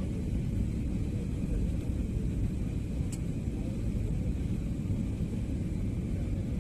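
Steady low rumble of a jet airliner's cabin noise in flight, heard from a window seat, with a faint high steady tone over it.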